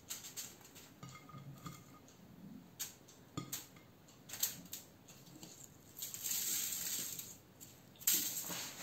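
Aluminium foil crinkling and rustling as strips of carrot and leek are laid onto it by hand, with scattered light clicks and taps and a longer stretch of crinkling about six seconds in.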